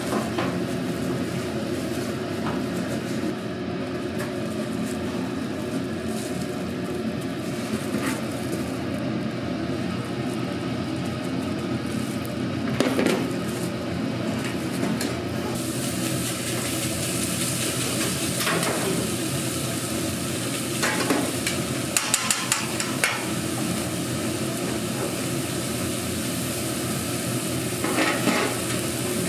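Food sizzling on a flat-top griddle, bulgogi beef, onions and cheese on a tortilla, the sizzle growing louder about halfway through. Several sharp clicks and scrapes of a metal utensil against the griddle, and a steady low hum underneath.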